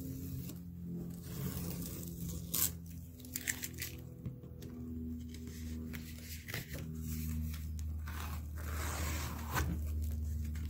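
Masking tape being peeled off the edges of watercolor paper: a few short sharp rips as it comes away in stages, and a longer peel near the end. The tape is sticking and coming off reluctantly. A low steady hum runs underneath.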